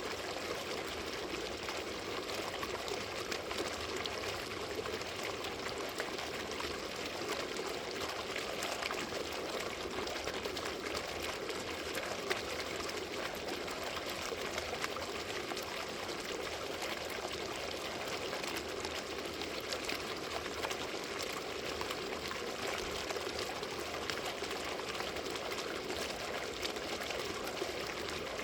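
Water fountain splashing and pouring in a steady, unbroken stream.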